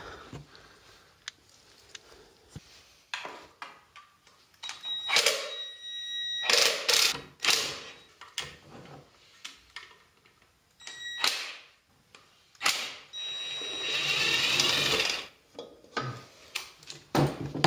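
Hand work with tools on a snowmobile's recoil starter as its 10 mm mounting bolts come out: scattered clicks, knocks and rattling of parts, with stretches of rustling. A short ringing tone sounds twice, about five seconds in and again about eleven seconds in.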